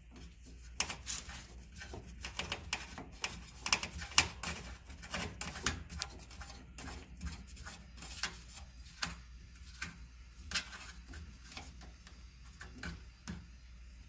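Brass garden-hose coupling being screwed by hand onto a water heater's brass drain valve: a run of irregular metallic clicks and scrapes as the fitting is turned and handled.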